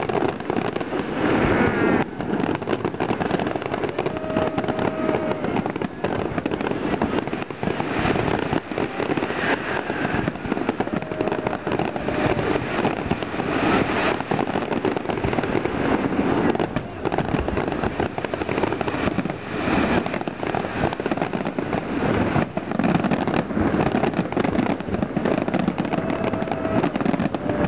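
Aerial fireworks in a dense barrage: a continuous rapid stream of bangs and crackling from many shells bursting at once, with no pauses.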